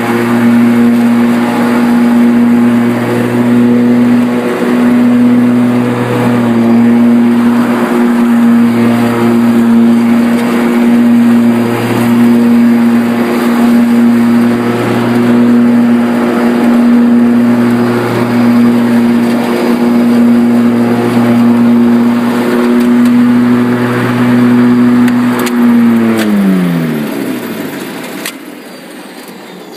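Electric lawn tractor's Motenergy ME1004 motor and spinning mower blades running under cutting load, a steady loud hum. Near the end the pitch falls as the motor and blades spin down.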